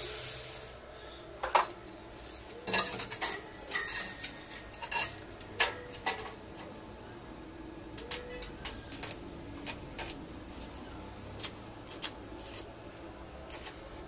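Irregular light metallic clinks and taps on a stainless steel stair handrail pipe as it is fitted, about a dozen in all, the loudest about a second and a half in.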